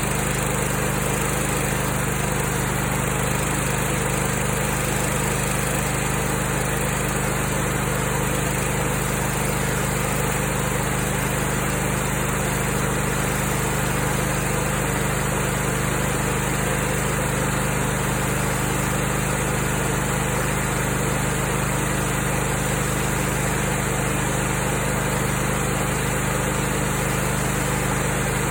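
Brand-new Kohler Command Pro ECV749 EFI V-twin engine running at a steady speed on its first run after installation.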